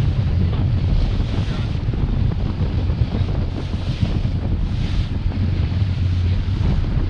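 Wind buffeting the microphone, with ocean water washing around.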